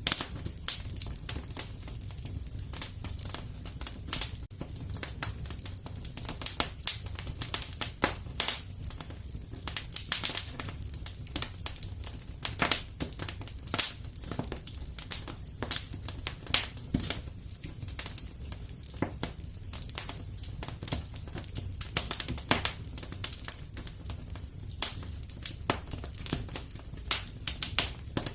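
Wood fire crackling and popping in a fireplace: frequent irregular snaps over a steady low rumble of burning.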